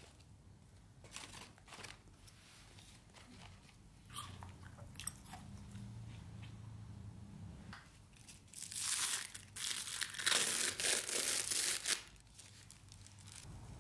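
Thin clear plastic being crinkled and pulled off a takeout coffee cup: a loud, dense crackle lasting about three seconds near the end, after a few light taps and clicks.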